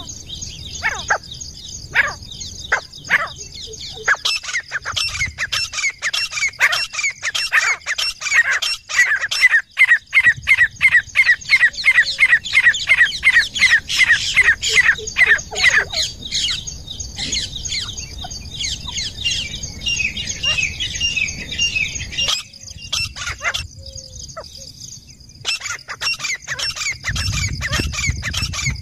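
Grey francolin calling: scattered call notes, then a long, rapid series of high, repeated notes at about four a second, loudest in the middle, before thinning out again near the end.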